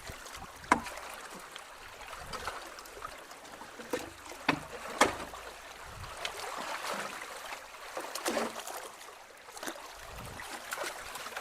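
Creek water gurgling and trickling through a culvert as its clog of sticks starts to clear, with a few sharp knocks from a potato rake hitting debris. The loudest knocks come just under a second in and about five seconds in.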